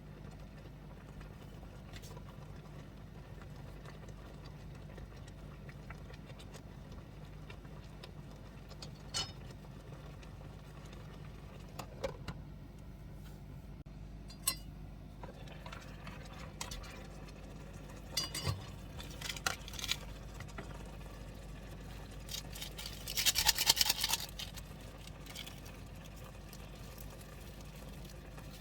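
A steady low hum under scattered small clicks and clinks of things being handled, with a brief rapid clatter about three quarters of the way through.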